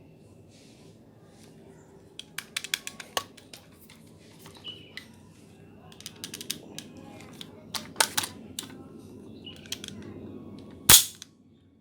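Sharp mechanical clicks and snaps from a Dboys KAC PDW airsoft electric gun being handled and dry-fired. A quick cluster of clicks comes about two seconds in, scattered clicks follow, and one much louder sharp snap comes near the end.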